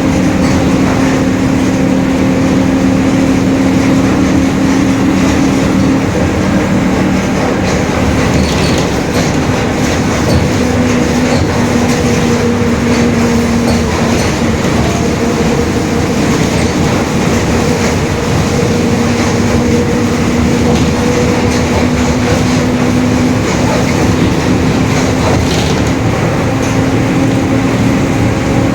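Mercedes-Benz OF-1721 Bluetec 5 city bus under way, its four-cylinder diesel running under the steady rumble of the drive, with a droning tone from the growling rear differential that steps in pitch a few times as the speed changes.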